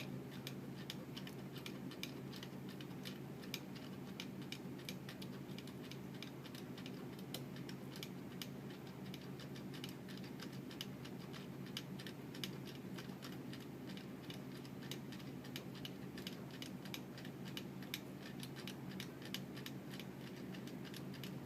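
Press-on wall clock movement ticking: a long run of light, slightly uneven clicks over a steady low hum.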